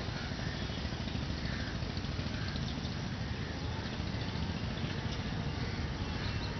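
Steady low outdoor rumble, with faint bird calls now and then.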